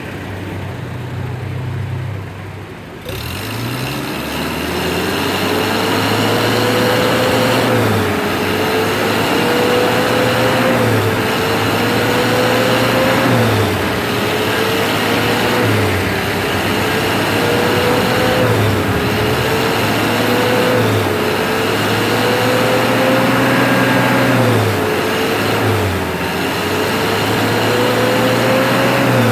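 Mitsubishi L300's diesel engine revved again and again, its pitch climbing for about two seconds and then dropping back, roughly every two and a half seconds. It is being run up to check for black smoke from the tailpipe. The revving starts about three seconds in.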